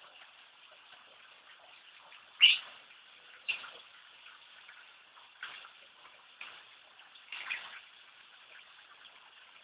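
A handful of short, sharp calls from a caged cucak jenggot (grey-cheeked bulbul), the loudest about two and a half seconds in.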